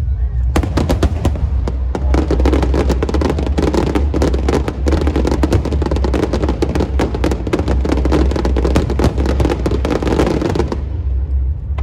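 Firecrackers going off in a rapid, continuous crackle of bangs for about ten seconds, starting just after the beginning and cutting off abruptly near the end, over a steady low rumble.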